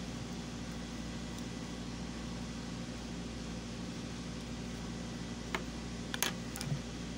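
Steady low mechanical hum in a small workroom, with a few short light clicks near the end as scissors are picked up and handled.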